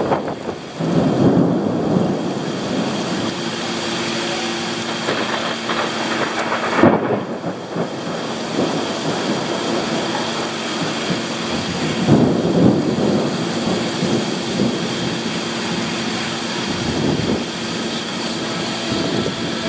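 Thunderstorm: steady rain with rumbles of thunder, swelling about a second in and again around twelve seconds, with a sharp crack near seven seconds.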